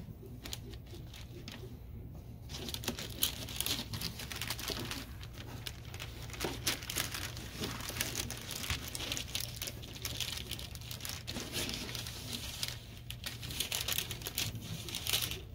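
Fabric sail of an R/C flying wing rustling and crinkling as it is handled and its carbon spars are pulled free, with scattered small clicks and knocks.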